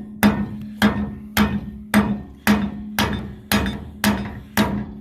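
Hammer striking steel on a Woods rotary mower's blade assembly, driving out a pin: steady blows about two a second, nine in all, each one ringing.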